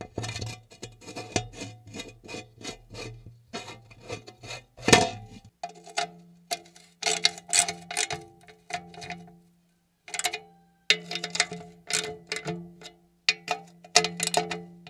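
Rapid, irregular metallic clicks and clinks of hand work on a forage cutter, over a low steady hum that steps up in pitch about five and a half seconds in.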